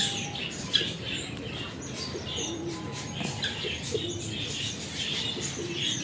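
Small finches chirping busily and continuously, with a few short, low coos from doves scattered through.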